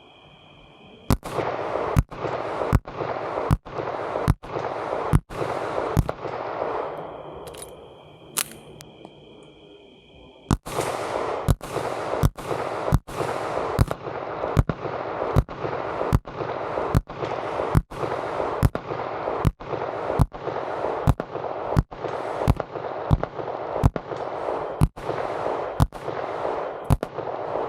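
Kel-Tec PMR-30 .22 Magnum pistol firing steady single shots, about one every 0.8 s: a string of about seven, a pause of a few seconds, then a longer string of about twenty more.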